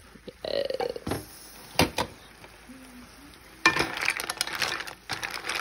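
Mussel shells clattering and clinking in a metal pot as they are stirred with a wooden spoon. There are two sharp knocks about two seconds in, then a steady run of rattling clatter through the second half.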